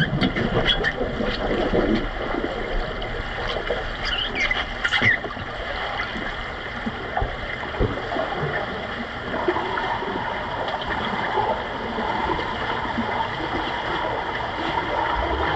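Underwater pool noise heard through a camera on the pool floor: churning water, bubbles and scattered knocks while underwater rugby players struggle at the basket. The knocks are busiest in the first few seconds, then the sound settles to a steadier wash of water noise.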